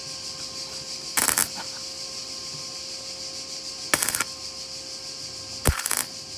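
Three short bursts of clatter, a couple of seconds apart, over a steady high hiss and a faint hum.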